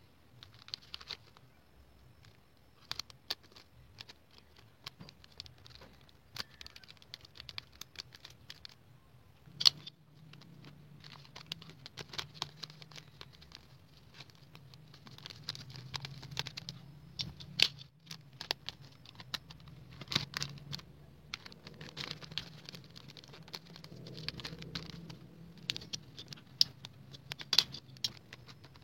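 Hands handling small items and plastic packaging: irregular sharp clicks and short crinkling rustles, with a faint low hum coming in about a third of the way through.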